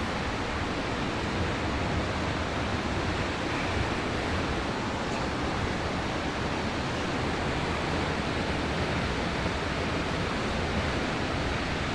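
The steady rush of a large waterfall's falling water, a dense even noise without a break.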